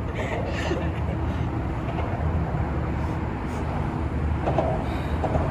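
Steady low rumble of road traffic under a highway overpass, with faint voices near the end.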